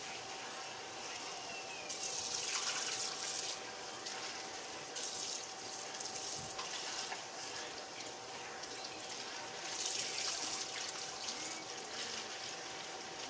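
Water running from a tap, its flow swelling and easing a few times, over a faint steady hum.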